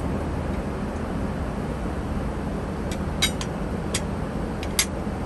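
Steady cabin noise of a Boeing 777-300ER in flight. In the second half come about six light clinks of porcelain dishes being set down on the table.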